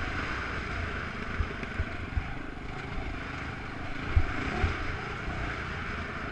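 Dirt bike ridden along a rough dirt trail, heard from an onboard camera: a steady mix of engine and wind noise, with a few dull thumps as the bike hits bumps.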